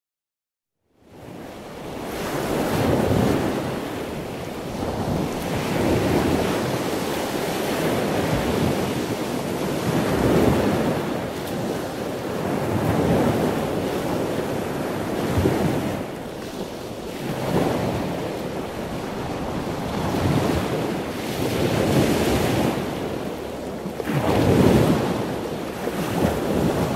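Sea waves washing in, a rush of surf that swells and falls back every two to three seconds, starting about a second in.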